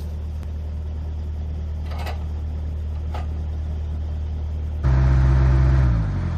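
An engine running at a steady low speed, with two short knocks about two and three seconds in. It is revved up sharply about five seconds in, then slows down with a falling pitch.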